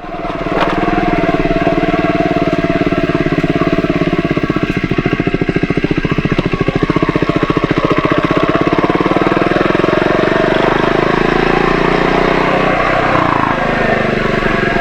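Triumph Scrambler 400 X's single-cylinder engine idling through its stock exhaust, a steady beat of firing pulses. The note shifts briefly about thirteen seconds in, then settles back.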